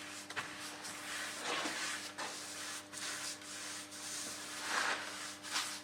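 Paintbrush brushing paint onto wooden trim boards: a run of irregular swishing strokes.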